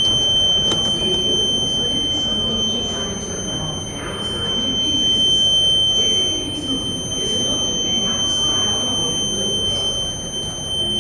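A steady, high-pitched electronic alarm tone, with voices murmuring underneath.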